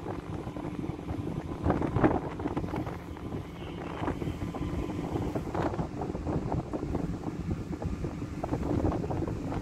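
Strong wind buffeting the microphone in irregular gusts, over the low steady rumble of a ship's engine as it manoeuvres to berth.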